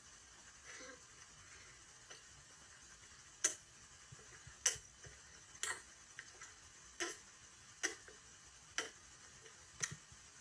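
A series of short, sharp clicks, about one a second, seven in all, starting a few seconds in.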